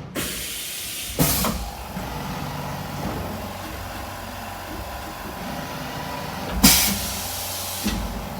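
Optimill F80 CNC milling machine running with a steady hiss, broken by two short, loud blasts of air, about a second in and near the end, and a smaller knock just after the second.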